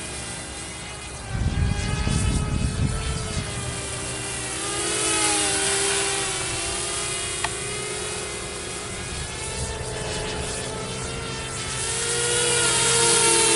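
Walkera F210 racing quadcopter's brushless motors and propellers whining in flight, the pitch rising and falling as the throttle changes. A low rumble on the microphone comes in about a second in and lasts about two seconds, and the whine swells louder near the end.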